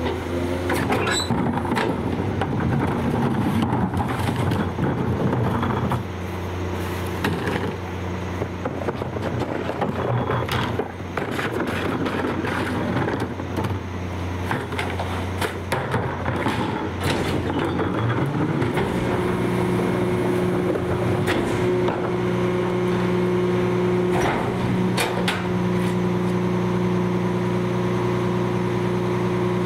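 Battle Motors LET2 / McNeilus XC-RL rear-loader garbage truck running, with knocks and clanks as carts are tipped into the hopper. A little over halfway through, the truck speeds up with a rising whine and holds a steady higher hum while the hydraulic packer cycles to compact the load.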